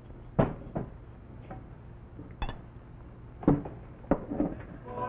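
Glasses and bottles being handled and set down on a soda-fountain counter: about six scattered clinks and knocks over a low steady hum.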